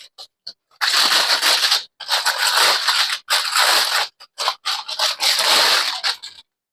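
Packaging rustling and crinkling in repeated noisy bursts as parts are dug out of a shipping box.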